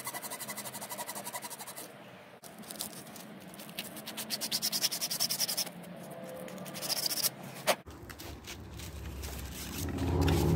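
Small hacksaw cutting a nock slot into the end of a hazel-wood arrow shaft clamped in a vise, in several bouts of fast back-and-forth scraping strokes, followed by a short bout of sandpaper rubbing in the slot. A sharp click sounds just before the end of the sawing, and a low rumble builds near the end and is the loudest part.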